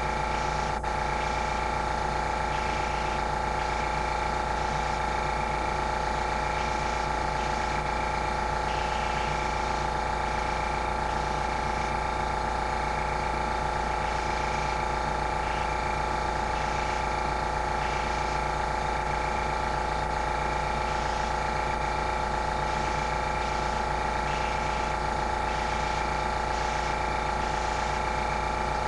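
Airbrush compressor running steadily, a hum of several held tones, with short hisses of air from the airbrush coming and going every second or so as spots of paint are sprayed. A single sharp click about a second in.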